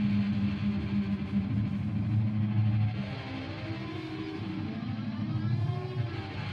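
Electric guitar played through effects pedals, making a noise drone: low notes held steady for about three seconds, then a quieter, shifting wash with wavering higher tones.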